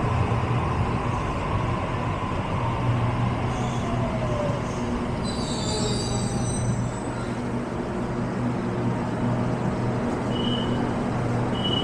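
Sydney Trains double-deck electric train standing at an underground platform, its equipment humming steadily. A brief high squeal comes about five to six seconds in, and short high beeps sound near the end.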